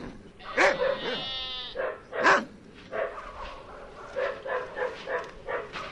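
Animal bleating: a long quavering bleat about a second in, set between sharp shorter cries, followed by a run of short yelping, bark-like calls.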